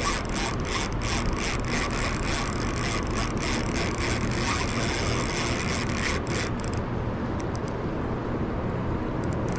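Spinning reel's drag clicking rapidly as a hooked trout strips line off against it. The clicking thins out about two-thirds of the way through, with a few more clicks near the end.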